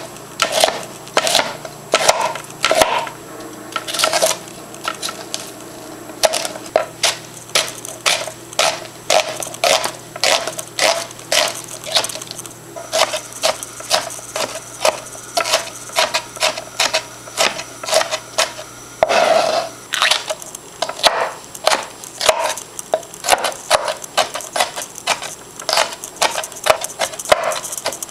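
Chef's knife chopping vegetables on a plastic cutting board: a steady series of knocks, about one to two a second, with one longer noise about two-thirds of the way in.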